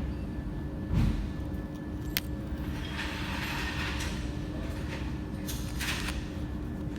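Handling noises of tools and metal parts: a dull thump about a second in, a sharp click, and brief scraping, over a steady low hum.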